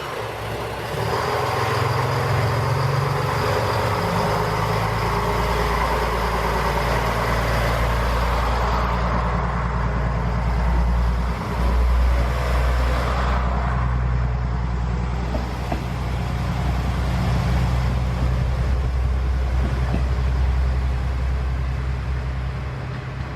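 KiHa 101 diesel railcar's engine running with a steady, low drone, the train standing or moving off slowly.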